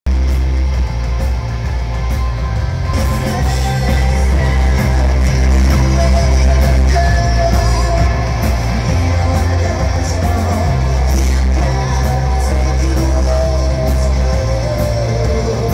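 Live rock band playing: sung vocals over electric guitar, bass guitar and drums, with a heavy bass.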